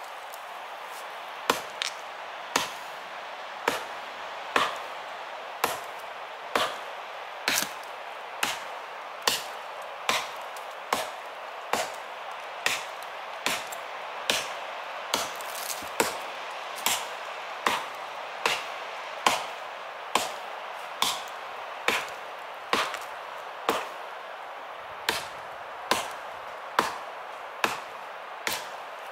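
Gransfors Bruks Small Forest Axe chopping into a dead log: a steady series of sharp blows about one a second, now and then a quick double knock, over a steady background hiss.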